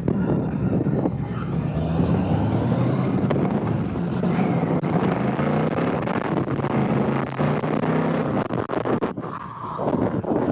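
Motorcycle engine running under way with wind rush, its pitch holding fairly steady, easing off briefly about nine seconds in before pulling again.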